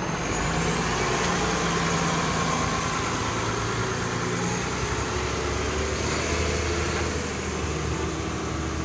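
City transit bus engine running as the bus passes close and pulls away, a steady drone with a high whine that rises in pitch over the first couple of seconds.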